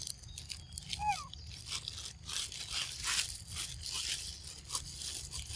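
Macaque chewing and biting into a firm green mango, giving irregular crunching. A brief falling chirp about a second in.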